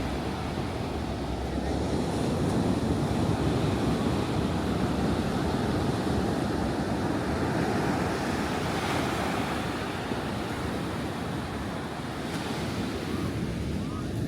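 Ocean surf breaking and washing up the beach: a steady rush of water that swells louder for a few seconds and then eases off again.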